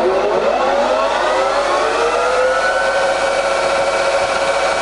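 C6256 centre lathe's spindle and headstock gears spinning up to their top speed of 1600 RPM: a rising whine that levels off about three seconds in and then runs steady.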